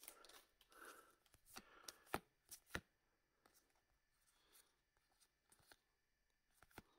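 Wixoss trading cards being flicked through by hand: faint card-on-card slides and a few sharp little snaps in the first three seconds, then only occasional soft ticks.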